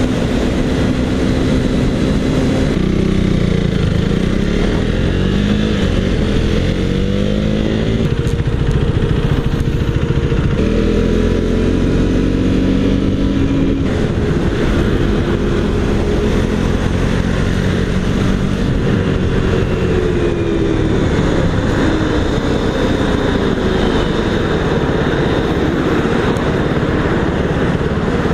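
Motorcycle engine running while riding along the freeway shoulder, its pitch rising and falling several times as the throttle and speed change, over a steady rush of wind and road noise.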